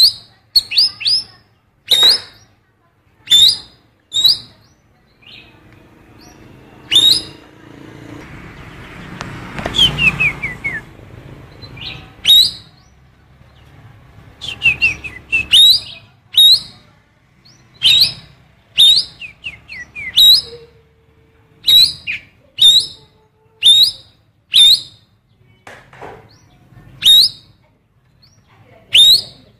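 A cucak keling bird giving short, sharp, loud calls about once a second, mimicking the calls of a female oriental magpie-robin. A brief rustle comes near the middle.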